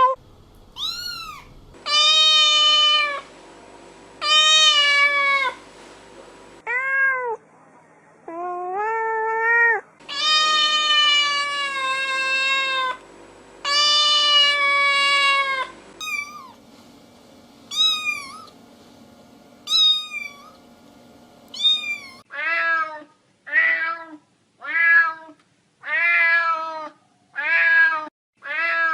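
A domestic cat howling: a series of long, drawn-out yowls of two to three seconds each, then a run of shorter meows about a second apart in the last third.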